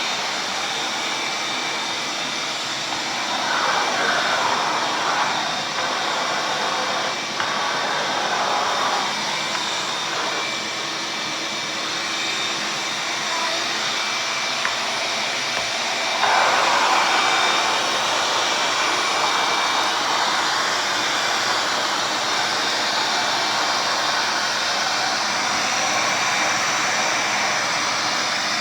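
Ridgid 5.0 HP 12-gallon wet/dry shop vac running steadily, a motor whine over rushing air through the hose. The rush of air swells twice for several seconds, about three seconds in and again past the middle.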